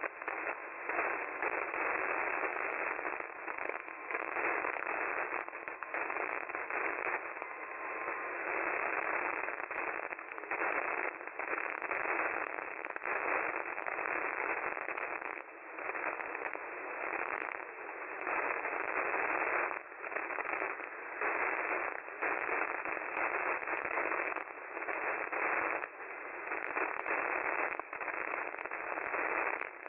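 Radio static: a steady hiss with crackling, thin and tinny as through a small radio receiver, with a faint steady whistle for about the first eight seconds.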